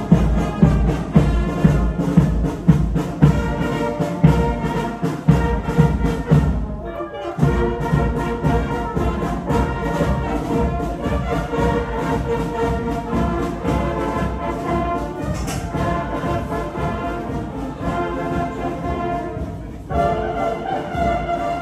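Marching brass band of trumpets, trombones and tubas playing a tune with a steady beat.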